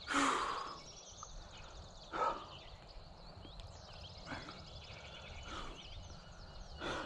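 Rustling swishes of movement through grass. The loudest comes right at the start, another about two seconds in, and a few fainter ones follow, with thin high chirps behind them.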